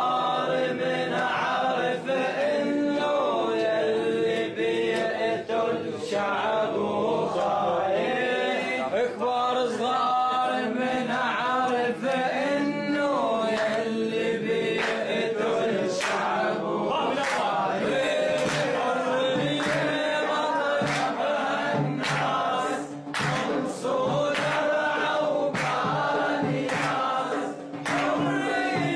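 A group of men singing a chant together without instruments.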